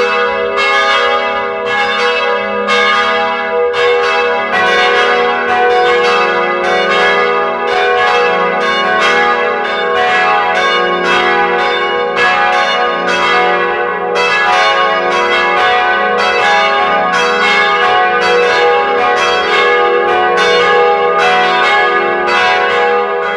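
A peal of church bells ringing. Several bells of different pitches are struck one after another at about two strikes a second, and each keeps ringing as the next one sounds.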